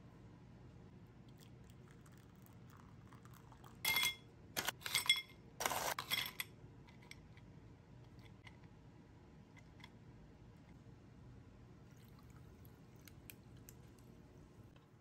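Ice cubes dropped into a glass tumbler: a quick run of clinks with a ringing glass tone, starting about four seconds in and lasting about two and a half seconds, followed by faint small handling clicks.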